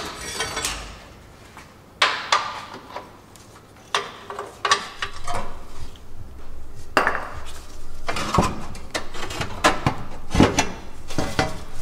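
Metal tools and parts clanking and knocking at irregular intervals, a few separate strikes at first and a busier run of clanks in the second half.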